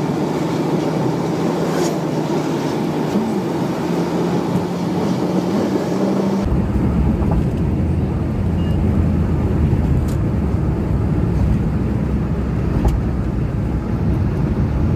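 Car engine and road noise heard from inside the cabin while driving, a steady hum with slight shifts in pitch. About six and a half seconds in it changes abruptly to a deeper, steadier low rumble with less hiss.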